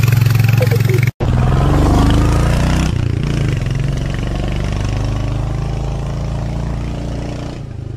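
Royal Enfield Hunter 350's single-cylinder engine running under way, its pitch rising and falling for a couple of seconds before settling to a steady run. The sound cuts out for an instant about a second in.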